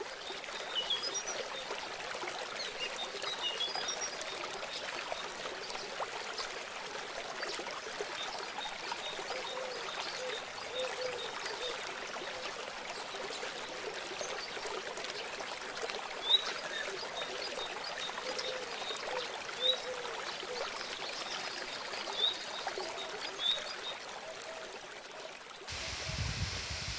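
Steady rush of falling water from a waterfall, with small high chirps scattered over it. About a second before the end the sound cuts abruptly to a different, duller noise.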